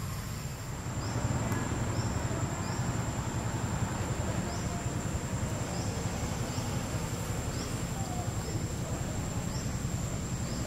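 Tropical forest ambience: a steady high-pitched insect drone with short rising chirps about once a second, over a steady low rumble.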